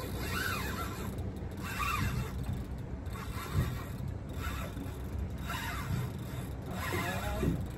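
Fishing reel cranked against a heavy hooked fish, its drag buzzing in short repeated strokes about once a second, over a steady low rumble.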